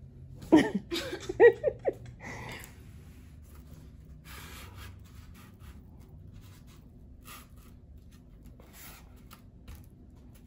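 A brief high-pitched wordless voice with a few rising and falling notes, then soft rubbing and scraping of foam board panels being slid and pressed into place, in a few short spells.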